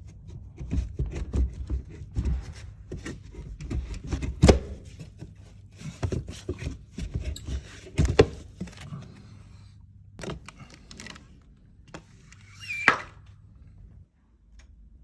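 Irregular knocks, clunks and handling noises, including two sharp knocks about four and eight seconds in, then a few scattered knocks and a short squeak near the end.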